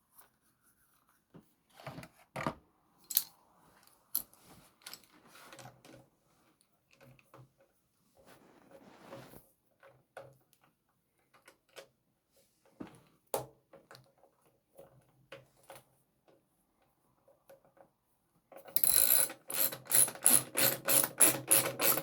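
Scattered clicks and knocks of parts and tools being handled, then, about three seconds before the end, a ratchet wrench starts clicking quickly and evenly, about four clicks a second, as a bolt is run in.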